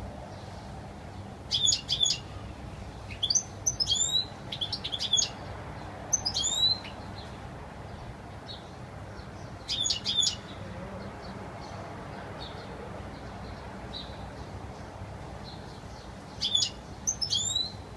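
European goldfinch twittering in short bursts of sharp, rising chirps, with a long pause in the middle.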